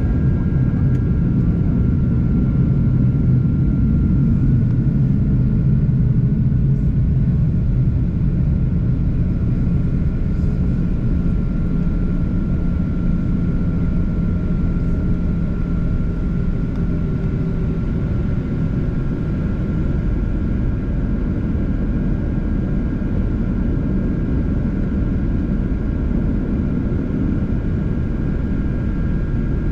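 Steady jet cabin noise inside a Boeing 737-800: a deep rumble of engines and airflow with a thin, steady whine from its CFM56 engines.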